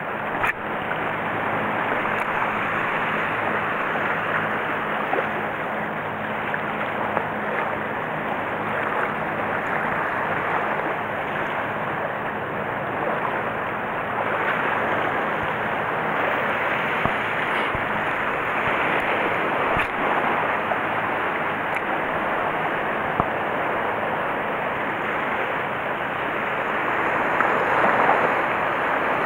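Small waves washing over a shallow coral reef flat: a steady rushing wash that swells a little near the end as a wave breaks white over the reef.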